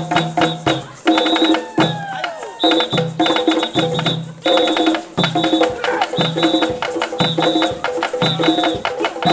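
African-style drumming on tall wooden hand drums: a fast, continuous stream of drum strokes over a short melodic pattern that repeats about once a second.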